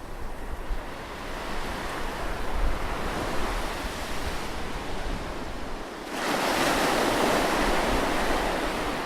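Ocean surf breaking close to the shore, a continuous wash of waves with a louder wave crashing in about six seconds in. Low wind rumble on the microphone underneath.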